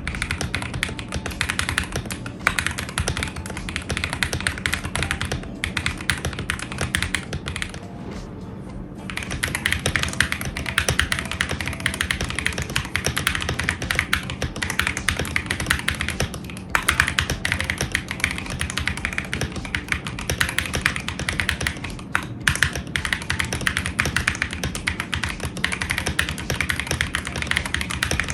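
Fast, continuous typing on a mechanical keyboard fitted with Akko CS linear switches, a dense run of key clicks that eases off briefly about eight seconds in.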